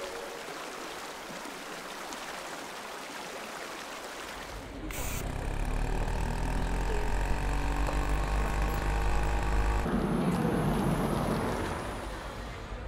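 An engine running with a deep, steady rumble, starting abruptly about five seconds in and cutting off about ten seconds in. Before it there is a soft, even background hiss.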